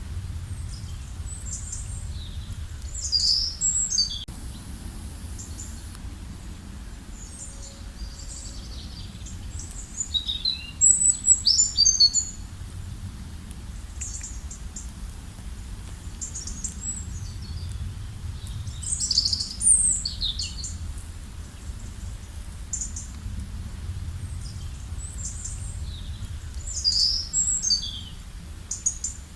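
Small birds chirping and trilling in short bursts of high calls, loudest about 11 and 19 seconds in, over a steady low background rumble.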